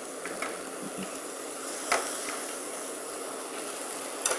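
Sprouted soybeans dry-roasting in a hot wok with no oil, giving a steady hiss, with one light knock about two seconds in.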